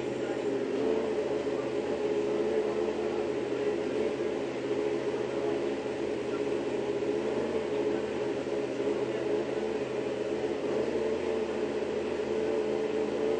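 Steady machine hum, a constant low drone with several tones held level throughout.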